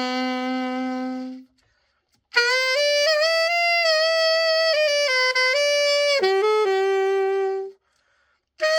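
Selmer Super Action 80 Series III alto saxophone playing a melody in long held notes. It breaks off twice briefly between phrases: once about one and a half seconds in and again near the end.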